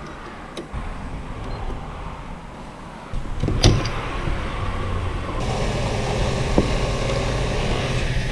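Petrol-station fuel dispenser pump whirring while a motorcycle's tank is filled. The pump hum steps up about three seconds in, with a click just after, then runs steadily.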